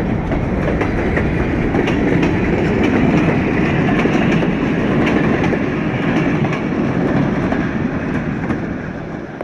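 Freight cars and cabooses rolling past on the rails: a steady rumble of steel wheels with occasional clicks as the wheels cross the rail joints. The sound fades near the end as the last caboose goes by.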